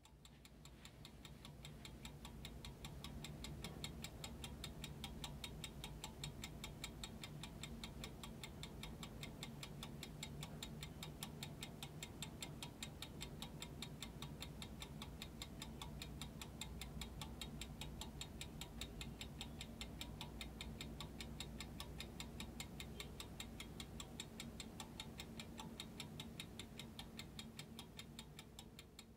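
Restored antique French Couaillet Frères carriage clock, c.1880, ticking fast and evenly from its platform escapement. The ticking fades in over the first couple of seconds and fades out near the end.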